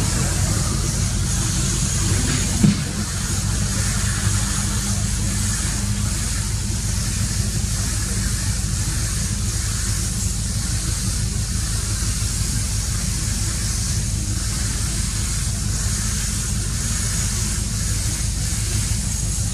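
Steady background noise, a low rumble under a high hiss, with one brief knock about two and a half seconds in.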